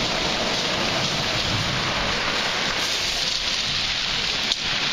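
Rough ocean surf breaking and foaming waves washing over a black pebble beach: a steady rushing hiss. One sharp click near the end.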